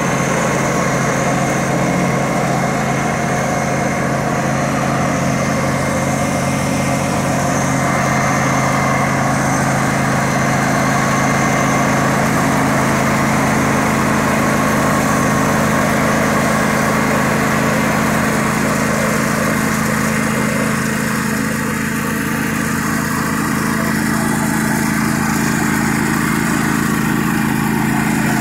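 John Deere riding lawn mower's engine running steadily as the mower is driven across the lawn.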